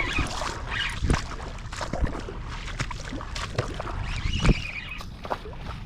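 Water splashing and sloshing in the shallows while a hooked fish is fought on light tackle, with a few sharp knocks, the loudest about four and a half seconds in. Wind rumbles on the microphone throughout.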